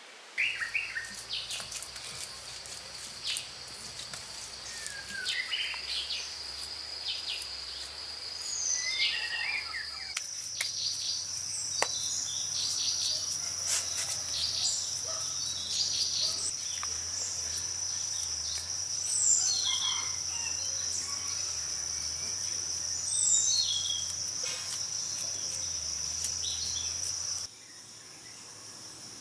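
Outdoor ambience of insects keeping up a steady high-pitched drone, with scattered bird chirps and small clicks. The drone jumps slightly in pitch about ten seconds in and drops away near the end, where the sound is cut.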